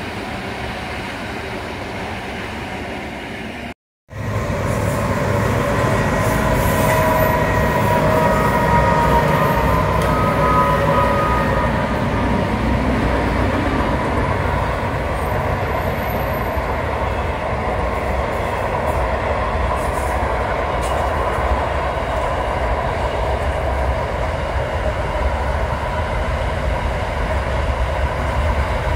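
An electric suburban train running past for a few seconds. After a short break, a long freight train's wagons roll by with a steady rumble, and the wheels squeal thinly for several seconds about a third of the way through.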